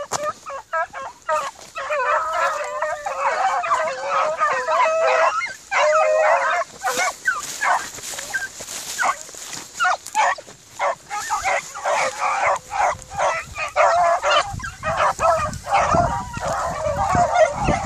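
A pack of hunting hounds giving tongue, many overlapping yelping and baying voices at once: the cry of hounds that have just started their quarry.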